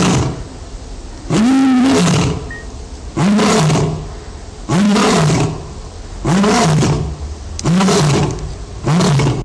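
Male lion roaring in a bout: six loud, drawn-out roars about every second and a half, each rising and then falling in pitch, the last one cut short.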